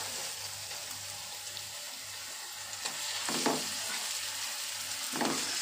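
Oil sizzling with a steady hiss in an aluminium pot as masala-coated murrel fish pieces are laid onto fried onions and curry leaves. Two brief soft knocks come about 3 and 5 seconds in.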